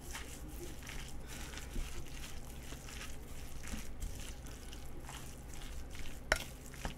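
Nakgopsae stew being stirred and scooped in its pan, with soft scraping strokes and a light sizzle; a sharp clink of utensil on pan about six seconds in.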